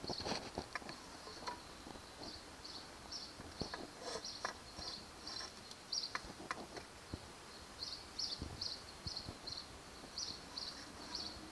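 Insects chirping in the background, short high chirps repeating in little runs, with scattered light knocks and handling noises as a plastic spirit level is set against the fiberglass boat hull.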